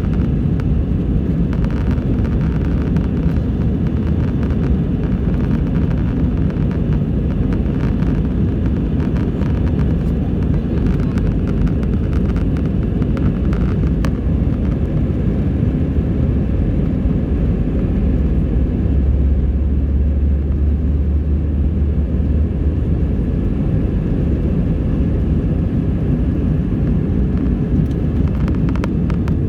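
Airbus A320 jet engines running, a steady low rumble, with a deeper hum that strengthens for a few seconds a little past the middle.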